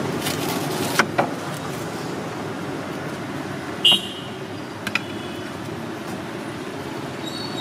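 Steady street traffic noise, with a few light clicks about a second in and one short, ringing clink, the loudest sound, just before four seconds in.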